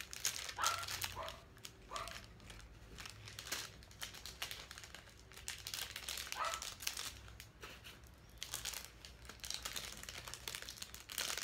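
Plastic packaging crinkling and rustling as it is handled and opened, with many small irregular crackles.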